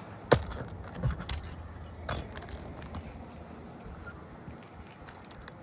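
A few sharp knocks and metallic clinks, the loudest about a third of a second in, then fainter scraping: a roofing tool working nails out of asphalt shingles.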